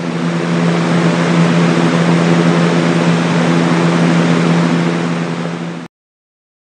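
Sound machine's "Fan" setting: a recorded electric fan, a steady whir of rushing air over a low motor hum. It swells slightly over the first second and cuts off suddenly near the end.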